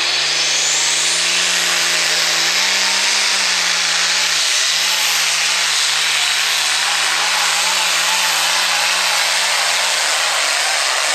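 Light pro stock International pulling tractor's turbocharged diesel engine running flat out as it drags the weight-transfer sled down the track. A high whine climbs over the first second or so. From about four seconds in, the engine note wavers up and down about twice a second.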